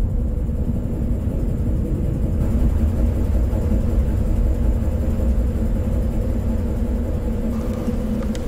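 Deep, steady rumbling drone with a low hum held under it: ambient sound design for a film.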